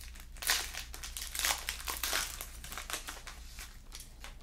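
Crinkling of a trading-card pack wrapper being handled and opened by hand, in irregular runs that are loudest in the first half and fade out toward the end.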